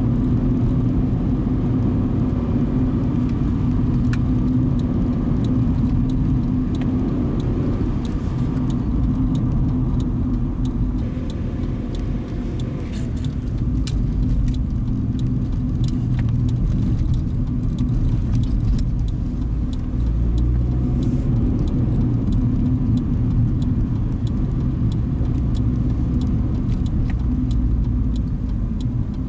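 A car driving at steady speed: a low, even rumble of road and engine noise, with light rattling ticks over it.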